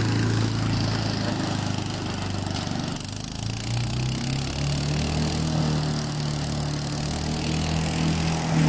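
Small gasoline engine of a chipper-shredder running steadily, its pitch stepping up about three seconds in.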